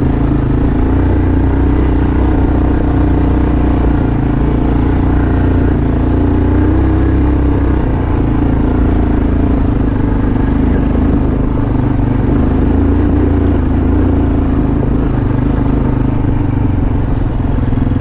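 Dirt bike engine running steadily under the rider as it travels along a dirt trail, its pitch holding fairly level with no sharp revs.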